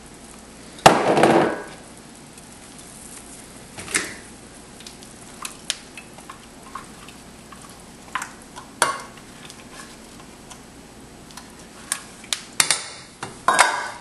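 Sauce ingredients being tipped from measuring cups into a stainless steel pot, with a loud knock and short pour about a second in. Scattered light clinks and knocks of cups and spoons against the pot follow, with a few sharper knocks near the end.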